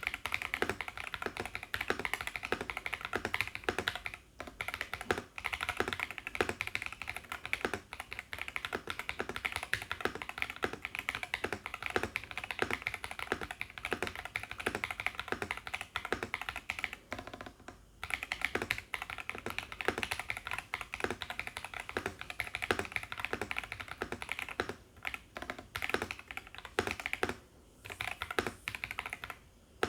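Steady fast typing on an Everglide SK68 gasket-mount mechanical keyboard with KTT Cabbage Tofu linear switches and PBT Cherry-profile keycaps, its aluminium plate damped with poron plate foam and case foam. The keystrokes run on rapidly, with a few brief pauses.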